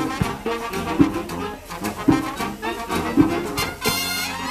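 Brass band with saxophones, trumpets, trombones, sousaphone and congas playing a Latin tune, with a strong beat about once a second under held horn chords. A bright, high brass passage comes in near the end.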